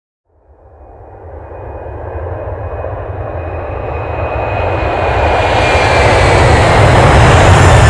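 Jet aircraft engine noise starting about a third of a second in and swelling steadily louder, a roar over a heavy low rumble with a faint high whine that slides slightly down in pitch.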